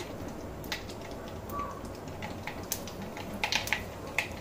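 Mustard seeds popping and spluttering in hot sesame oil in a kadai during tempering: scattered sharp little pops, sparse at first and coming faster near the end.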